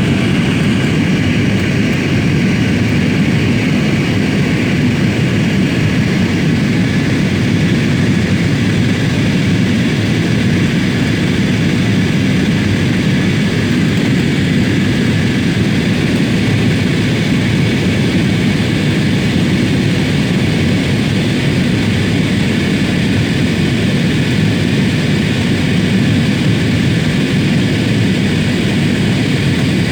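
Steady drone of an airliner's engines and rushing air heard from inside the passenger cabin in flight, an even low roar that does not change.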